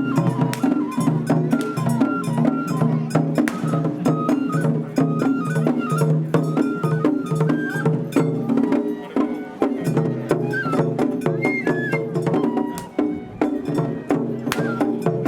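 Parade music with percussion: a high melody in short stepped notes over sustained low notes, with sharp clicking strokes throughout.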